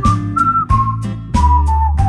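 Background music: a whistled melody stepping downward over strummed guitar chords with a light beat.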